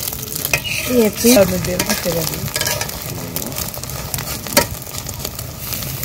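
Omelette sizzling in hot oil in a wok, with a metal spatula scraping and tapping against the pan as it is pushed and lifted. A short pitched sound comes about a second in.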